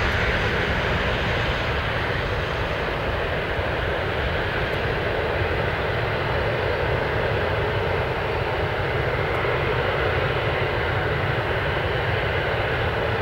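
Airbus A320 jet engines running at low taxi power: a steady rumble and hiss as the airliner taxis past, its higher part easing off over the first couple of seconds.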